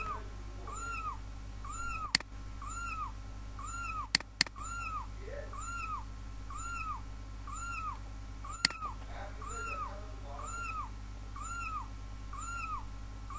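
A short meow-like call that rises and falls in pitch, repeating at a steady pace a little faster than once a second. Each call is the same as the last, like a looped sound effect. A few sharp mouse clicks come in between.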